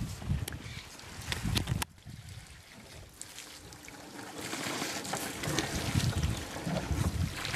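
Wind rumbling on a camcorder microphone over outdoor ambience, with a few sharp ticks. The sound drops away suddenly about two seconds in and builds again, louder, from about four seconds.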